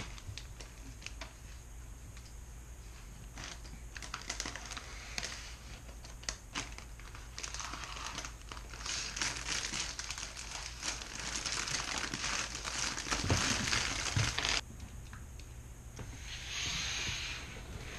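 Plastic bags of Lego pieces crinkling, with plastic bricks clicking and rattling as they are handled and snapped together. The clicking grows busier in the middle and stops suddenly near the end.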